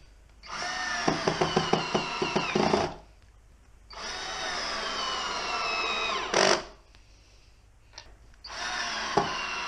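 Cordless drill driving No. 10 wood screws through a Scotty bracket mount into a wooden block: three runs of the motor. The first has a quick rattle of clicks, the second slows in pitch as it goes, and the third starts near the end.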